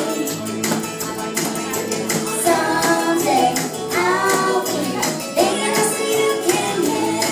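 Young girl singing karaoke through a microphone and PA over a backing track with a steady percussion beat.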